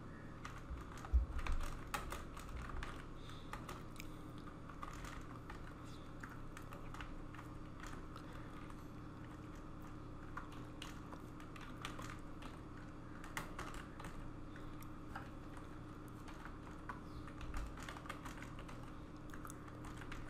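Typing on a computer keyboard: irregular keystroke clicks, with a low thump about a second in, over a faint steady hum.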